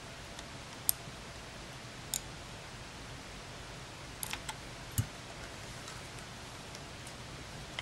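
Small plastic clicks and taps from handling a partly disassembled Canon PowerShot SX130 compact camera and its lens barrel: single clicks about one and two seconds in, a quick cluster near four seconds and a slightly heavier knock at five seconds, over a steady hiss.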